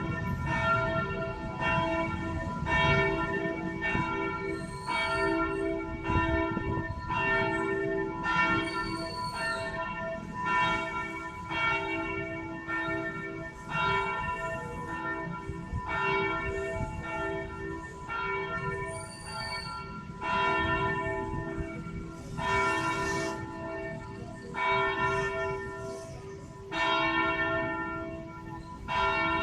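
Cathedral tenor bell, its note given as E1, rung in a steady run of strokes about one a second, each stroke ringing on into the next.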